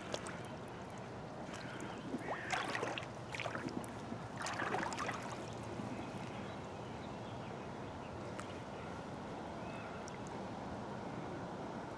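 Water splashing and sloshing as a carp landing net is moved about in shallow water, with a cluster of splashes in the first five seconds, then only a steady hiss.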